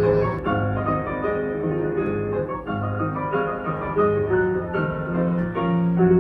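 Grand piano playing a classical piece, with quick runs of notes over a bass line.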